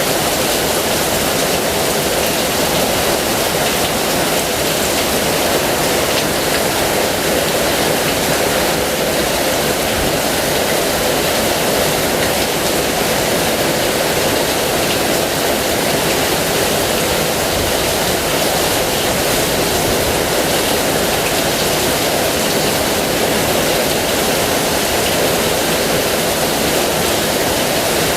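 Heavy rain falling, a dense, steady hiss of water.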